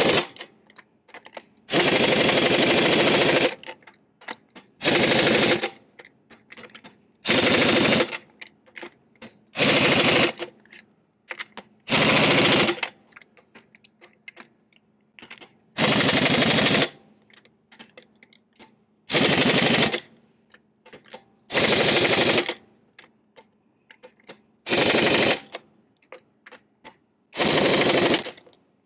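Pneumatic impact wrench hammering semi-truck lug nuts in about eleven short bursts, a couple of seconds apart, with small clicks between them. This is the final pass around the wheel, run to check that every nut is fully tight.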